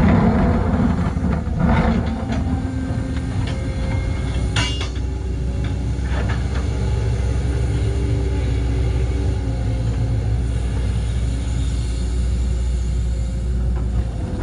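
Excavator's diesel engine running steadily while its bucket digs into the clay of a trench, with a few scraping knocks in the first half.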